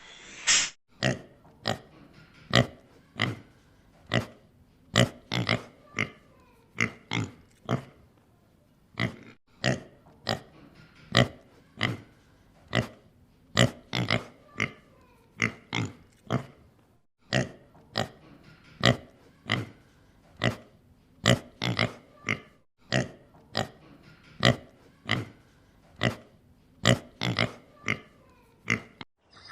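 Pig grunting: a long series of short, separate grunts, about one or two a second, with a few brief breaks.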